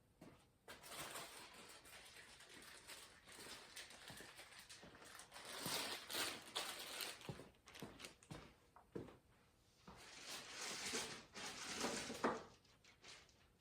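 Irregular rustling with many light clicks and taps as engine parts and packaging are handled during a valve-train install.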